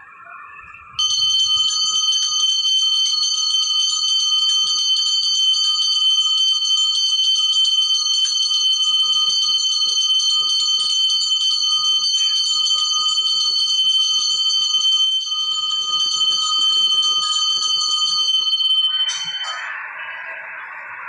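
Temple bell rung rapidly and without a break during a Hindu aarti, a loud, bright, steady ringing. It starts about a second in and stops about 19 seconds in.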